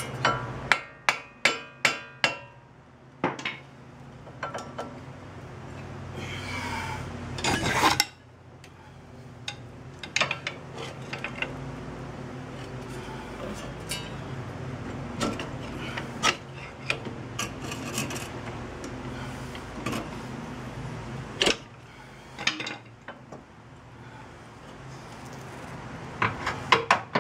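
Metal clanks, knocks and scraping from a pry bar and steel suspension parts as a lower control arm is worked into place in a car's front suspension. It opens with a quick run of about six ringing metal strikes, followed by a scrape and scattered knocks.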